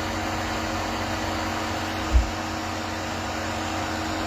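Steady mechanical hum and hiss, like a running motor or fan, with one short low thump about two seconds in.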